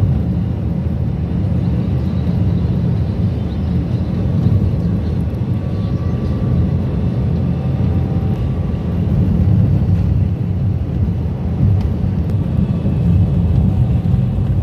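Steady low rumble of a car on the move, heard from inside the cabin: engine and tyre noise.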